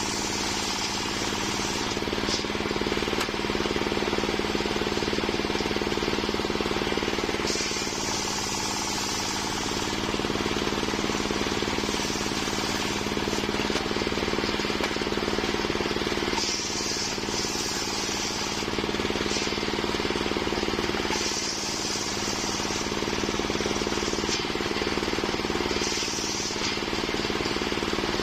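An engine-driven homemade circular sawmill running steadily, its blade cutting through waru wood, with a high hiss that comes and goes several times as the cut loads and eases.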